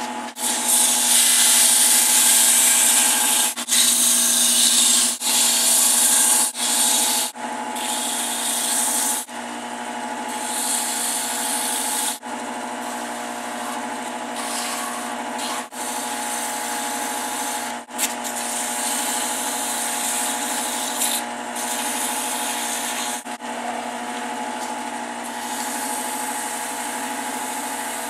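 Wood lathe running with a steady motor hum while sandpaper is held against a small spinning wooden knob, giving a hiss that comes and goes in stretches. The sound drops out briefly several times.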